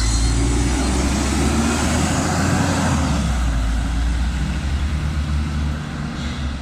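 Inside a LiAZ 5292.67 city bus under way: the steady low drone of its YaMZ-53624 compressed-natural-gas engine, with road and tyre noise.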